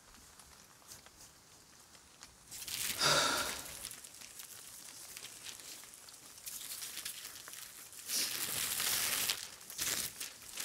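Large sheet of plastic film rustling and crinkling as it is dragged and unfolded over the ground, in several bursts: one about three seconds in, then more from about six and a half seconds on.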